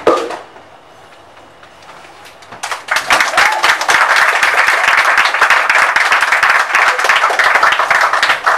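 Audience applause: after a short lull, dense hand-clapping breaks out about three seconds in and stays loud until it cuts off suddenly.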